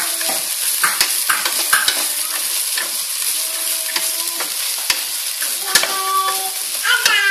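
Rice and black beans sizzling in a stainless steel pot while a wooden spoon stirs them, with short scrapes and knocks of the spoon against the pot.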